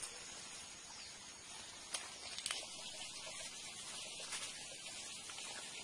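Faint steady outdoor hiss of rural ambience, with a few light clicks.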